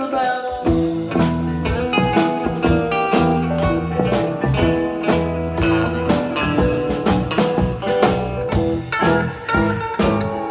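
A band playing a blues song without vocals: guitar over bass and a drum kit keeping a steady beat.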